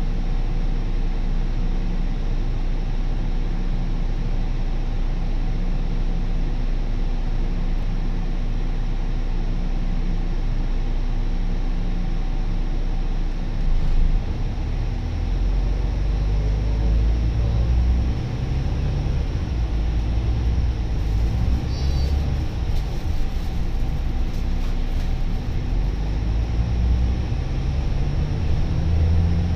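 Volvo B9TL double-decker bus's six-cylinder diesel engine heard from inside the passenger saloon: a steady idle, then about halfway through the bus pulls away and the engine note grows louder, rising and dropping repeatedly through the gear changes.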